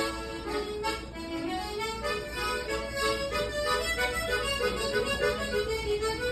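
Unaccompanied solo harmonica playing a quick melody of short notes, with the tongue technique adding its own accompaniment effects.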